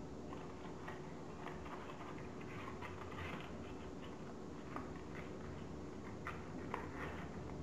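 Folded origami paper units rustling and crinkling as they are handled and slotted together by hand, with a few sharper paper clicks in the second half.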